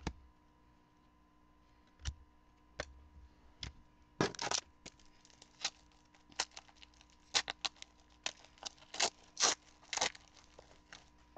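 Football-card packs and cards being handled: a foil pack wrapper torn and crinkled, with a run of short, sharp snaps and rustles, loudest about four seconds in and again near the end.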